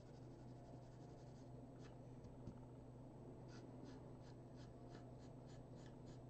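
Faint pencil shading on paper: short scratchy back-and-forth strokes, a few scattered at first, then a steady run of about three strokes a second from about halfway through.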